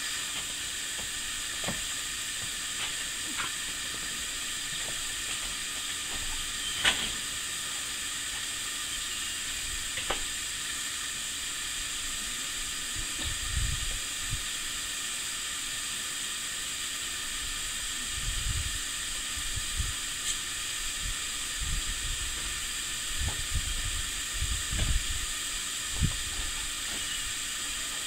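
Burgers sizzling on a gas barbecue grill: a steady hiss, with a few sharp pops and, in the second half, scattered low thumps.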